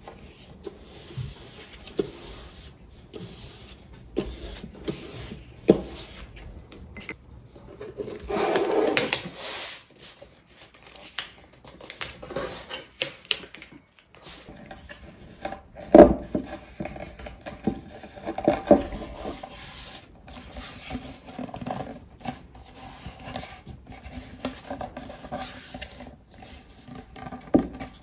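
Wet watercolour paper being rubbed, pressed and folded over the edges of a wooden art panel, with scattered taps and knocks of the panel on the table. There is a longer stretch of rubbing about eight to ten seconds in and a sharper knock about sixteen seconds in.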